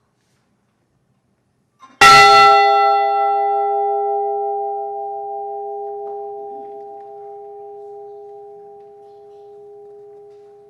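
A large bell struck once, tolling for a lost crewman. The strike comes about two seconds in; its brighter overtones die away within a couple of seconds, while a few lower steady tones keep ringing, slowly fading.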